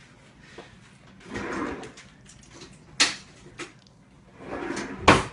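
Handling noises: two sharp knocks, one about three seconds in and a louder one near the end, each with a short stretch of rustling before it.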